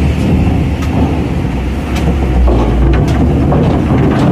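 Loaded cargo truck's diesel engine running low and steady as the truck creeps onto a ferry's steel loading ramp, with a few sharp clanks spaced about a second apart.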